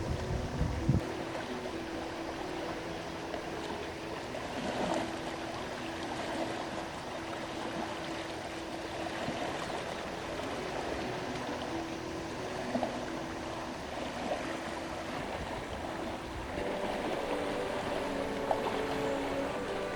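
Steady wash of gentle sea waves on the shore, with soft background music of held notes laid faintly over it.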